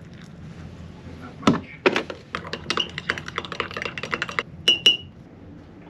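A quick, irregular run of small hard clicks and clinks, ending with two sharp taps that ring briefly.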